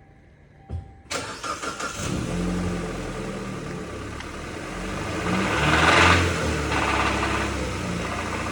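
Kia Ceed's warm engine cranking and catching after about a second, then idling, with a brief rev about five to six seconds in. It is the engine that the owners suspect of knocking, light rattling with shiny metal shavings in the oil.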